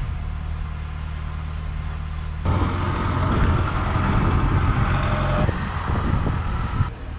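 A motor vehicle's engine running with a steady low hum. About two and a half seconds in, a louder rushing noise joins it for about three seconds, then falls away.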